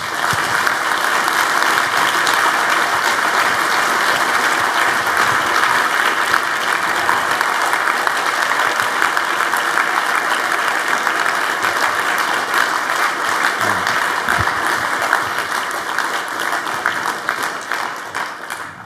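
Audience applauding: a dense, steady clapping that starts at once and holds for most of twenty seconds, then dies away near the end.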